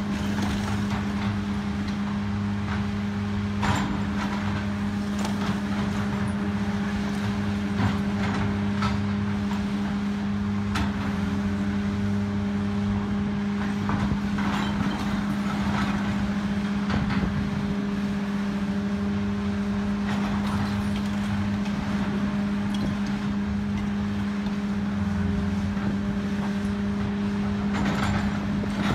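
CAT tracked excavator's diesel engine running with a steady drone under load while its demolition grapple tears into a brick building, with scattered crashes and clatter of falling rubble and sheet metal, a heavier cluster near the end.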